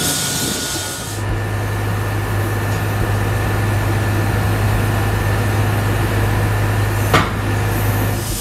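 Fire-hose water spray hissing for about a second. Then the steady low drone of a fire engine running at the scene, with one sharp click about seven seconds in.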